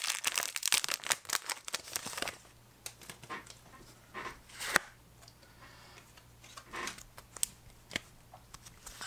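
Foil Pokémon booster pack wrapper crinkling as it is torn open and the cards are pulled out, for about the first two seconds. After that, faint rustling and light clicks of the cards being handled, with one sharper click about halfway through.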